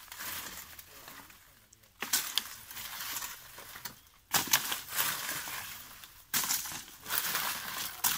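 Dry palmyra palm leaf stalks and trunk bark rustling and scraping as a climber hauls himself up the trunk, in three rough bursts about two seconds apart, each fading off.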